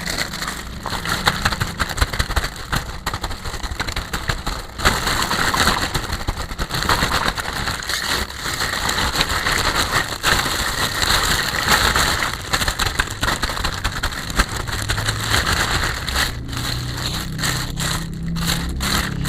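Plastic packaging crinkling and crackling continuously as a toy set is unboxed by hand, with a run of sharper clicks near the end.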